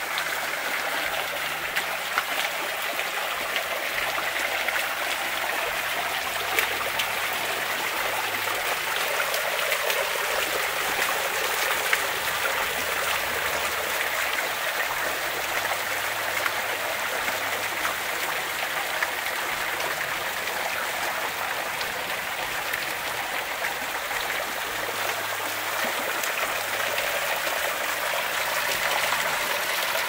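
Small waterfall: thin streams of water falling down a rock face and splashing into a shallow pool, a steady trickling splash.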